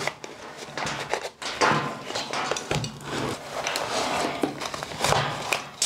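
Nylon chest rig being handled: irregular rustling and scraping of webbing and fabric, with a few small knocks, as a radio is pushed into its side pouch.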